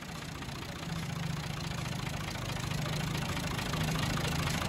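New Holland Ghazi tractor's diesel engine idling steadily, growing slowly louder.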